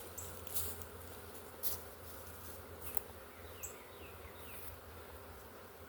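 Honey bee swarm buzzing, a steady hum, with three sharp ticks in the first three seconds.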